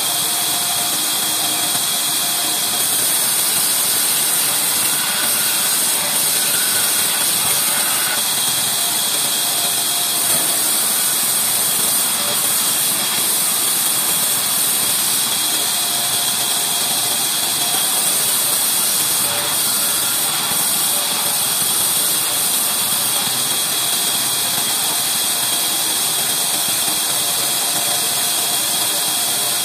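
Large band saw running steadily with a continuous loud whir and hiss, ripping old reclaimed house timber that is pushed through the blade.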